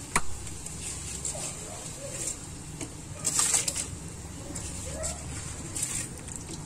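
Soaked rice tipped into a pot of boiling water, splashing and hissing in short bursts, the biggest about three seconds in. There is a sharp clink just at the start. A bird coos faintly in the background a few times.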